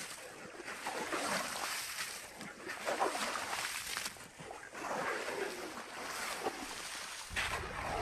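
Shovel scraping and scooping wet salt crust, in repeated strokes about a second long. A low wind rumble comes in near the end.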